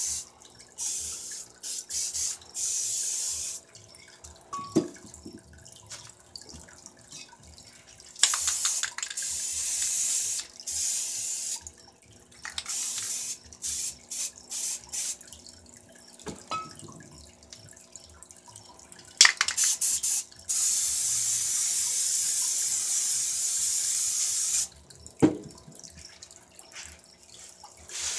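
Aerosol spray paint cans hissing in repeated bursts of one to three seconds, with one longer burst of about four seconds past the middle. A few short knocks come between the bursts.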